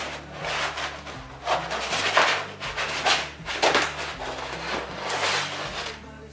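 A stiff sheet of shelf liner being peeled up and pulled out of a wooden sink base cabinet, giving a series of rustles and scrapes against the cabinet wood.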